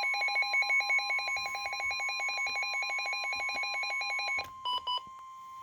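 Weather alert radio sounding the steady 1050 Hz warning alarm tone of an Emergency Alert System flood warning, with a rapid pulsing beep of about nine a second over it. The beeping stops about four seconds in, two short beeps follow, and the tone cuts off suddenly near the end.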